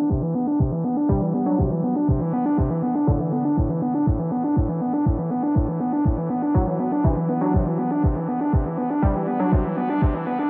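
Background electronic music: a steady kick drum beat about twice a second under sustained synthesizer or keyboard chords.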